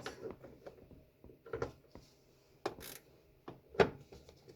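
Three separate sharp clicks and clanks, about a second apart, from hand tools and metal parts being handled during repair work.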